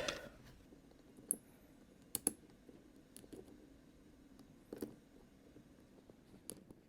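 Lock being picked: a few faint, sharp metallic clicks about a second apart, two of them in quick succession, as the picks work the pins.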